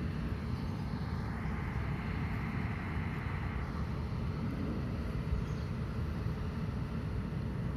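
Steady outdoor rumble of wind buffeting the microphone mixed with distant vehicle traffic, swelling for a few seconds about a second in.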